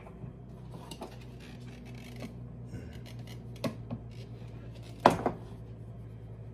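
Kitchen handling sounds as flour is poured from a plastic bag into a mesh sieve over a mixing bowl: scattered light clicks and rustles, then two sharp knocks about five seconds in, over a low steady hum.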